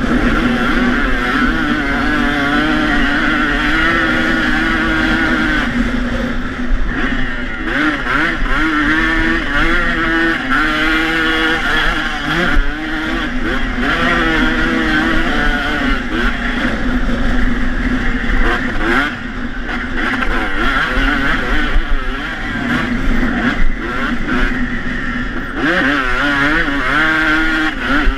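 Two-stroke dirt bike engine revving hard as it is ridden, its pitch climbing and dropping again and again through gear changes and throttle blips. A steady low wind rush sits on the onboard camera's microphone.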